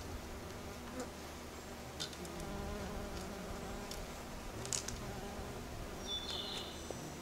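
Bumblebee buzzing in flight, a low hum that swells and fades as it moves about, with a few sharp clicks and a brief high chirp near the end.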